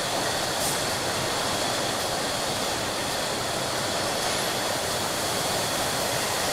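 Steady machinery din of a glass bottle factory production line, with a constant high whine over the noise and a faint click about half a second in.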